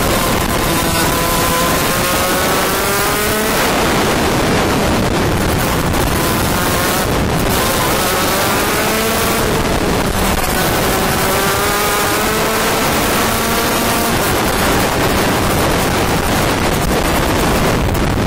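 80cc two-stroke shifter kart engine running under race load, its pitch climbing in three long pulls through the revs and dropping between them, under heavy wind rush on the microphone.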